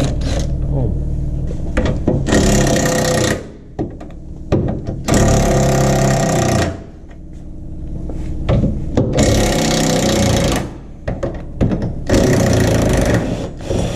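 Cordless impact wrench hammering on suspension bolts in four short bursts of a second or so each, with pauses in between.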